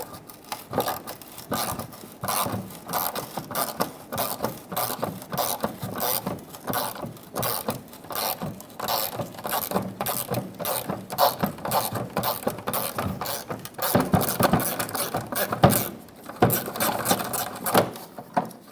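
Ratchet wrench with a 7 mm socket clicking rapidly in long runs as it backs out small bolts.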